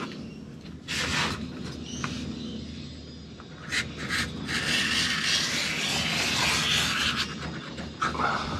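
Scissors cutting woven fibreglass cloth: a few short snipping rasps, then a longer rasping stretch in the middle as the blades run along the cloth.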